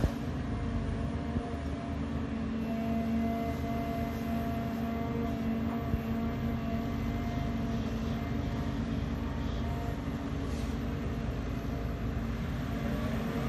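Volvo EC290B LC excavator's diesel engine running steadily under hydraulic load as it digs, a constant drone with a hum, and two brief knocks, one at the start and one about halfway.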